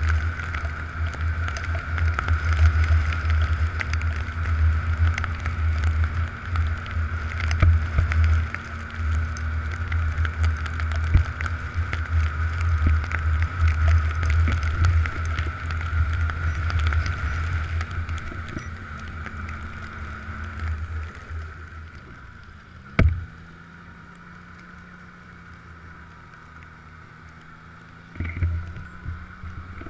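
Snowmobile running steadily under way with a heavy low rumble. About two-thirds of the way through it eases off, there is a single sharp knock, and the engine settles to a lower, quieter steady note.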